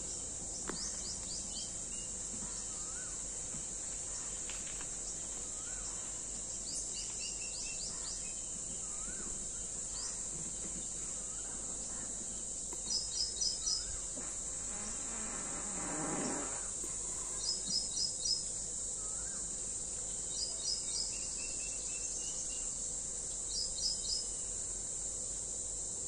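Steady high-pitched insect drone with birds calling over it: groups of about four quick high notes every few seconds, and thin falling whistles in the first half. About halfway through, a low rushing sound swells and fades.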